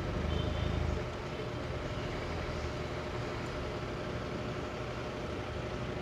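Heavy, slow street traffic: vehicle engines, including jeepneys, running and idling in a jam as a steady low rumble. A nearby engine is louder for about the first second.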